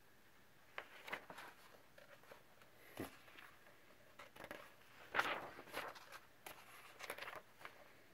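Paper pages of a coloring book being handled and turned by hand: a string of short, soft rustles and slides, the loudest about five seconds in.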